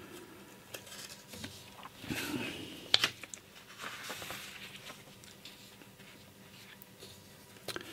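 Faint handling noises near a studio microphone: rustling and scattered small clicks, the loudest a sharp click about three seconds in.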